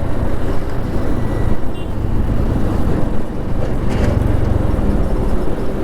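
Motorcycle running along a highway with wind rushing over the microphone: a steady engine and road rumble under dense wind noise.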